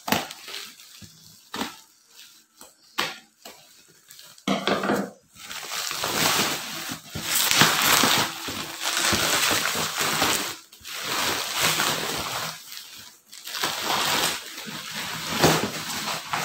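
Bubble wrap and plastic packaging crinkling and rustling as it is pulled off a cardboard box: a few scattered crackles at first, then loud, continuous rustling from about four seconds in, with brief pauses.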